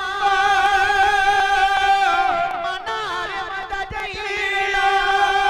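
A man singing long held notes in a Gujarati folk narrative chant, the pitch sliding once partway through before settling on the held note again.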